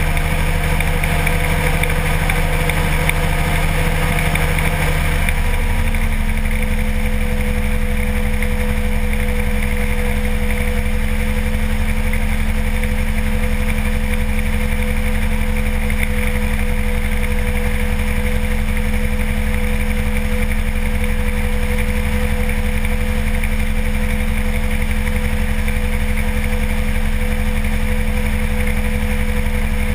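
Engine of a Kolb ultralight aircraft running steadily in flight, a continuous drone whose note changes about five seconds in and then holds steady.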